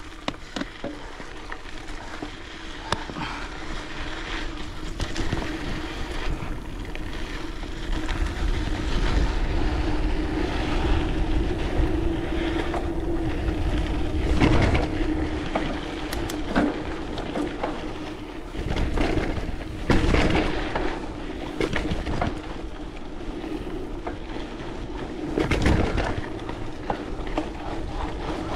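Wind gusting against the microphone in uneven swells, over a steady droning tone and a few scattered knocks.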